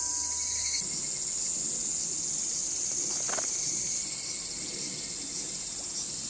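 Steady, high-pitched chorus of summer insects buzzing; its pitch steps up slightly about four seconds in.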